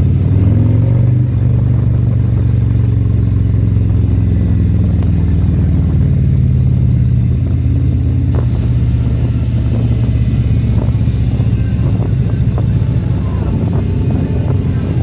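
Motorcycle engine running while riding, a loud low drone that holds steady. Its pitch bends briefly about a second in and shifts again about six seconds in.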